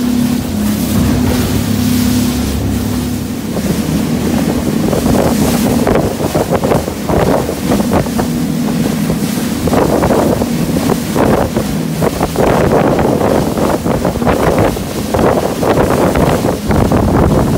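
Twin Suzuki outboard motors running at cruising speed on an aluminum catamaran: a steady drone, with water rushing past the hull and wind buffeting the microphone. About six seconds in, gusty wind and spray noise take over and the engine drone fades under it.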